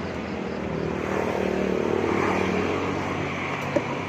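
A motor running steadily, its pitch rising a little about a second in, with a single short click near the end.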